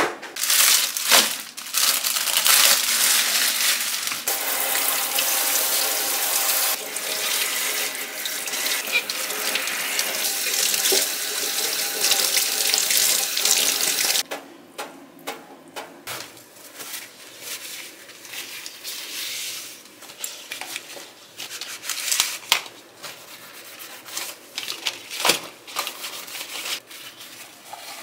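Kitchen tap running into a stainless steel sink while red chili peppers are rinsed under the stream. The water shuts off sharply about halfway through, and scattered light clicks and knocks of kitchen handling follow.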